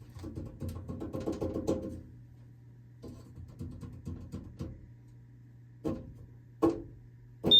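Rapid clicking and rattling handling noises over a steady low hum, then two sharp knocks, and a loud thump as a steady high-pitched fire alarm tone starts at the very end.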